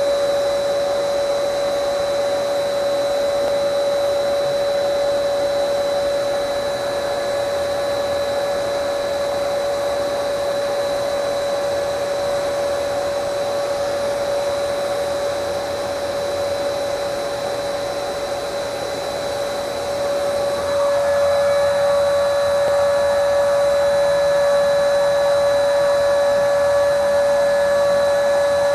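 Portable electric spray gun running steadily with a high-pitched whine while spraying paint onto a motorcycle frame. It is used in place of a compressor. About two-thirds of the way through, its tone changes and it gets a little louder.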